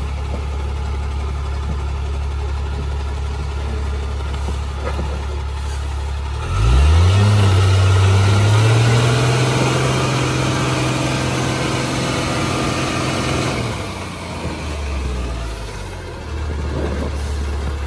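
Tata Signa truck's diesel engine idling, then revving up sharply about six seconds in and holding high revs for several seconds as the truck pulls through mud, before dropping back to idle near the end.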